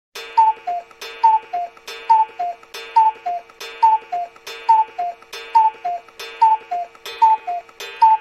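Clock ticking in a steady tick-tock rhythm, a pair of beats about every 0.85 seconds. Each beat is a click with a short ring, the tick higher-pitched than the tock, over a faint steady hum.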